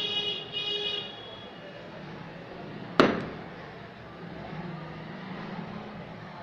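Two short, high-pitched toots right at the start. About three seconds in comes a single sharp bang that rings away over about a second. A low steady background runs underneath.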